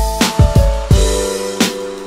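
Background music with a steady electronic beat: deep kick drum and bright cymbal hits under held synth notes.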